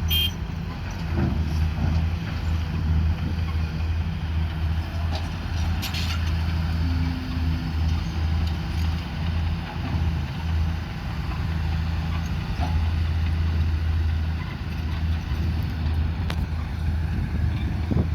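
Excavator engine running steadily with a deep, low hum, with a few faint knocks on top.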